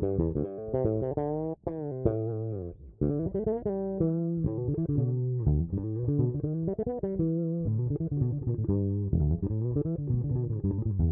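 Short-scale electric bass guitar with custom-wound pickups playing a quick run of plucked notes, several a second, with sliding pitches. There is a brief break about one and a half seconds in.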